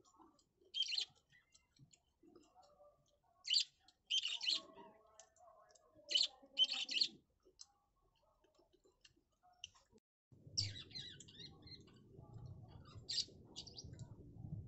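Birds chirping in short, scattered bursts. A low steady rumble comes in about ten seconds in.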